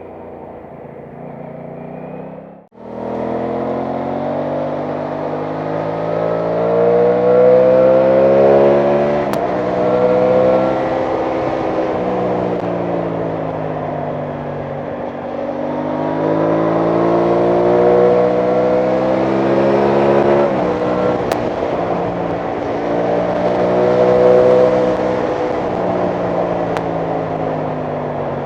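Aprilia Tuono 660 Factory's parallel-twin engine under way, its pitch climbing and falling repeatedly as it is accelerated and eased off. Quieter for the first couple of seconds, it drops out briefly about three seconds in and comes back louder.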